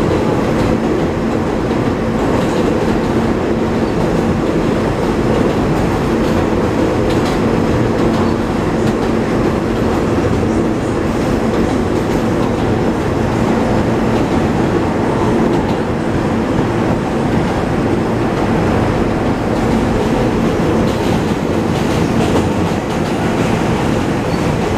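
R160 subway car running at a steady speed: a continuous rumble of wheels on rail with a steady hum from the traction motors.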